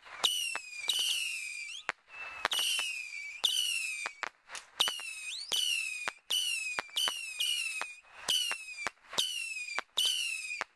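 Whistling fireworks going off in a rapid string: about a dozen short shrill whistles, each dropping slightly in pitch, with sharp cracks between them.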